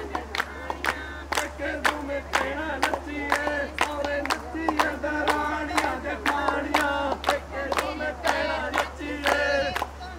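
A crowd of voices singing and chanting together over a steady beat of sharp strikes, about two a second, with a low hum underneath.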